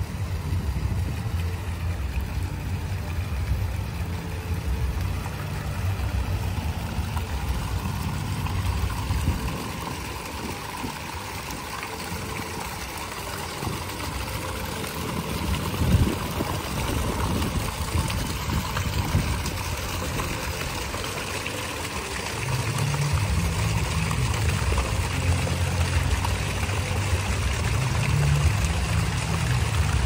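Fountain jets splashing steadily into a tiled pool, fullest in the middle, with a brief louder splash about halfway. A low rumble underlies the water at the start, fades out before the middle and returns near the end.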